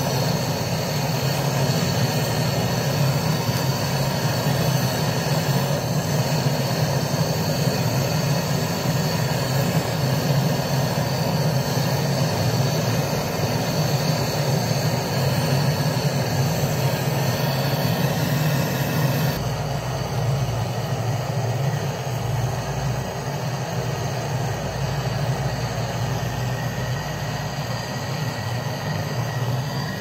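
Handheld cartridge gas torch burning with a steady rushing hiss as it heats a copper joint to braze a filter drier into a refrigerator's condenser line. About two-thirds of the way through the noise changes tone, with less hiss and more low rumble.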